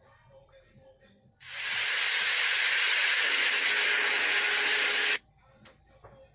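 A loud, steady hiss that starts about a second and a half in, holds evenly for nearly four seconds, then cuts off abruptly.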